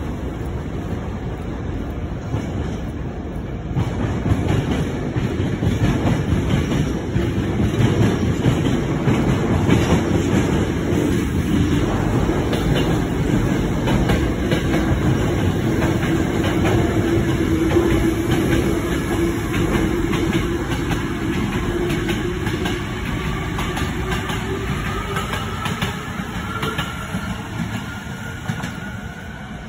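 A train passing on the tracks alongside, rumbling and clattering. It swells about four seconds in, with a rising whine late on, and eases off near the end.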